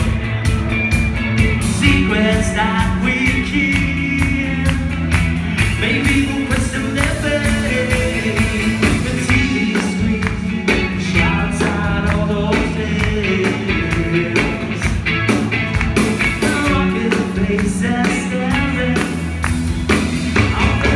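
Rock band playing live: electric guitars, bass and drums driving a steady beat, with a vocalist singing.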